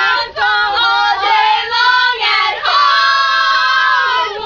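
Young girls' voices singing together, a chant-like tune that ends on one long held note.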